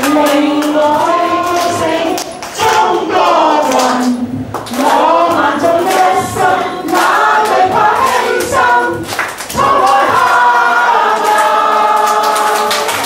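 A small group of voices singing a slow Chinese song together, with hand clapping along.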